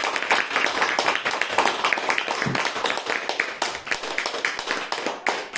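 Applause: many hands clapping at once in a dense, continuous patter that thins a little toward the end.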